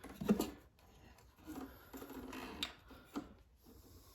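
Faint handling sounds of small-engine parts and tools being moved: light rubbing and shuffling, with two sharp clicks in the second half.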